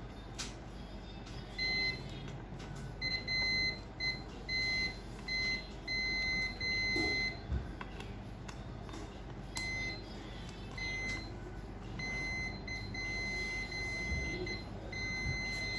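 Digital multimeter's continuity beeper sounding as its probes touch points on a scanner logic board: a steady high-pitched beep switching on and off about a dozen times, some beeps brief and some held for over a second. The held beeps flag short circuits on the board, which the technician reads as shorted capacitors.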